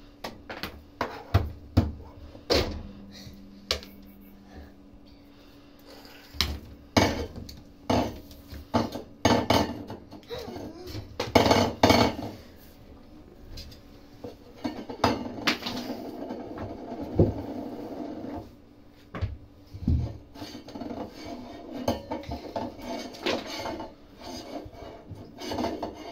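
Wire dog crate rattling and clanking in irregular bursts as a small dog stands up and paws against its gate, with scattered sharp knocks.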